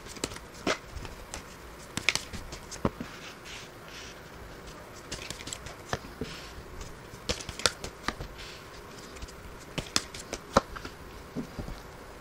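Tarot cards being shuffled by hand, then dealt and laid down on a table one at a time: scattered soft snaps and taps of card stock with light rustling between them.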